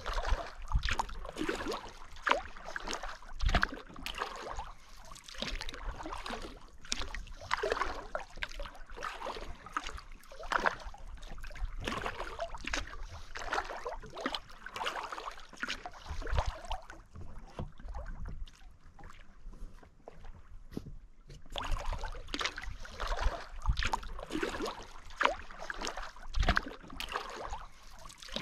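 Water sloshing and splashing irregularly around a sea kayak on the lake, with scattered sharp splashes. It goes softer for a few seconds past the middle.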